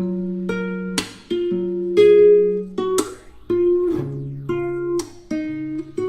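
Background music: an acoustic guitar playing plucked notes and strums at a steady, unhurried pace.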